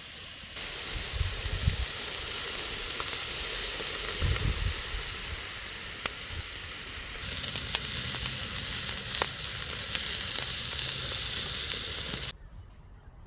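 Pork neck, sausages and eggplant sizzling on a grill: a steady hiss with scattered small pops of fat. It gets louder about seven seconds in and cuts off suddenly near the end.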